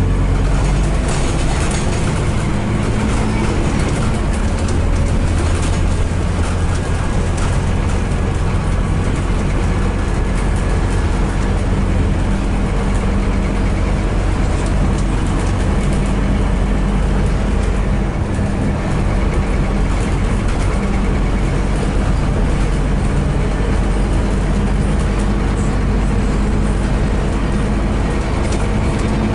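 Scania DC9 diesel engine of a Scania N230UD double-decker bus, heard from the upper deck running steadily at road speed, with road noise and occasional short knocks from the bodywork.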